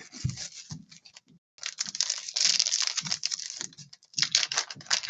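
Trading card box and pack wrapper being opened by hand: crinkling, tearing packaging with a dense rustle about a second and a half in, among irregular small clicks of cardboard and cards being handled.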